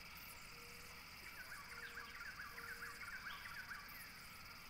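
Faint outdoor nature ambience: a bird chirping in a quick run of short notes for about two seconds, starting about a second in, over a steady high insect hum.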